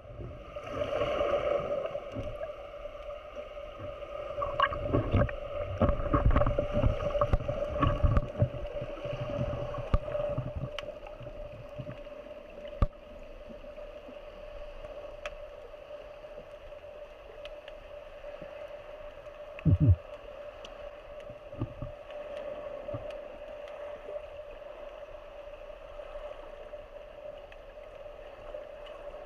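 A boat's engine running with a steady whine, with rough low rumbling over the first ten seconds and a single loud knock about twenty seconds in.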